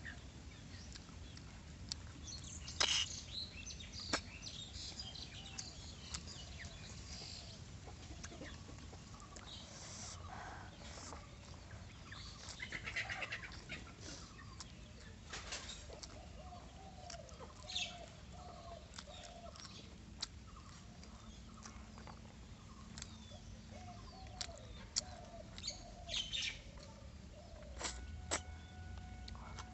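Close mouth sounds of eating snail curry and rice by hand: scattered sharp lip smacks, clicks and sucking sounds. A bird calls in the background, with two short runs of quick repeated notes in the second half.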